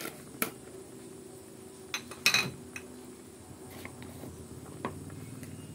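Home kitchen sounds over a simmering soup: a low steady hum with a few sharp clicks and knocks, the loudest a quick cluster a little over two seconds in, from a plastic spoon and seasoning containers being handled.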